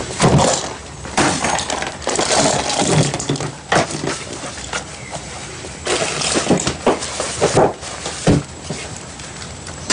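Items clattering and rustling on a wooden table as they are set down and moved about by hand, in several separate bursts.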